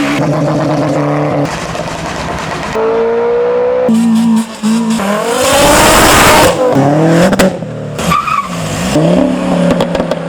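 Cars' engines revving and accelerating in a string of short clips that cut abruptly from one car to the next, the pitch climbing through the gears. The loudest, about five to six and a half seconds in, is a hard acceleration with a rush of noise.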